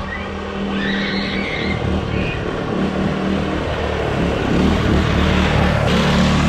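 Go-kart's small lawnmower-type engine running steadily, growing louder toward the end.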